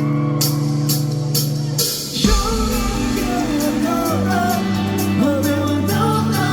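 Live rock band starting a song: held chords with regular cymbal ticks, then the full band with drums and bass comes in about two seconds in, and singing begins over it.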